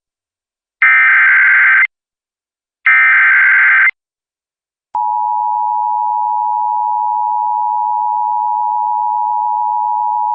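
Emergency Alert System SAME header data bursts: two one-second bursts of rapid, buzzy data warble a second apart, the last two of the header's three repeats. About five seconds in, the steady attention tone near 1 kHz comes on and holds, signalling that a National Weather Service severe thunderstorm warning is about to be read.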